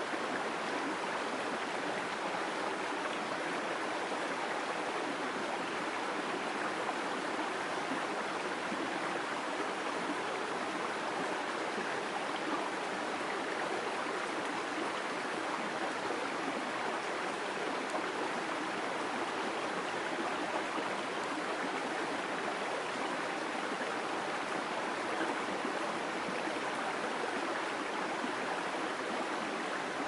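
Shallow rocky stream babbling over stones: a steady, unbroken rush of running water.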